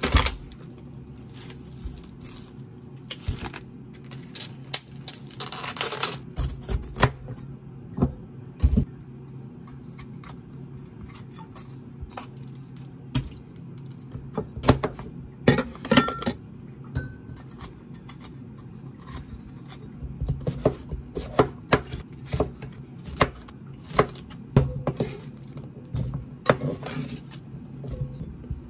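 Kitchen knife cutting bell peppers on a wooden cutting board: irregular knocks of the blade on the board, with a stretch of plastic-bag crinkling about six seconds in. A steady low hum runs underneath.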